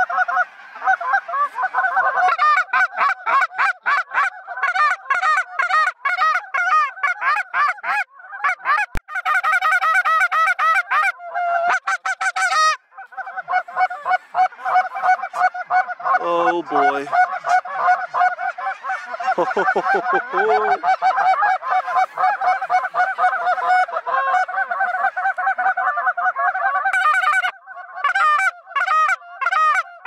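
A huge flock of geese calling overhead: a dense, unbroken chorus of overlapping honks and yelps from hundreds of birds.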